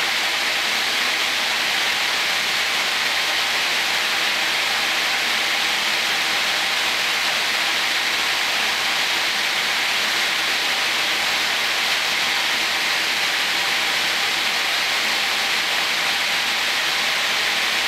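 Main spindle of an Okuma Multus B300 CNC lathe running steadily at 2,500 RPM: an even whirring hiss with faint steady hum tones underneath.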